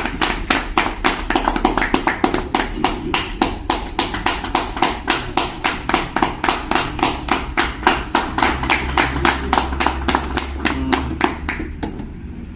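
A group of people clapping together in a steady rhythm, about four claps a second, in welcome. The clapping stops about a second before the end.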